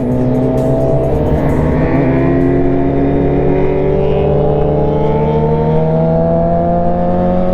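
Motorcycle engine running steadily under light throttle, its pitch rising slowly as the revs build.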